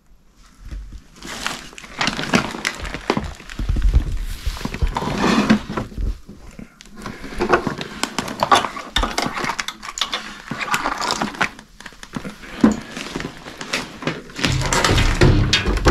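Irregular knocking, clatter and rustling from things being handled and moved about, starting about a second in and carrying on in an uneven run of sharp knocks.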